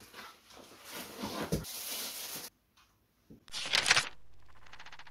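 Cardboard rustling and tearing as a slim cardboard box is pulled open by hand, for about two and a half seconds. About three and a half seconds in comes a short, loud rushing burst, followed by a steady faint hum.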